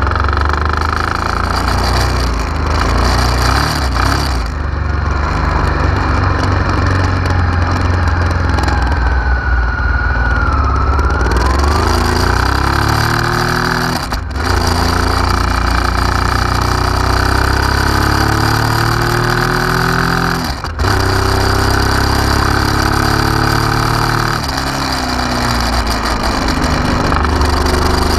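Honda Africa Twin RD04's 742 cc V-twin engine running, its revs rising and falling slowly a few times.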